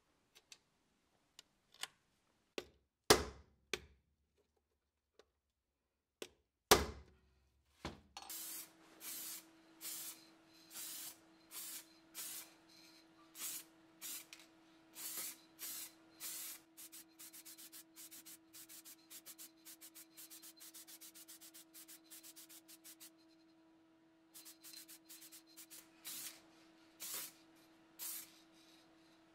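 Clicks and two sharp knocks on the steel shell of an M17 helmet as a domed rivet is set into it. Then an aerosol spray-paint can hisses in short repeated bursts, about one a second and quicker in the middle, over a steady low hum.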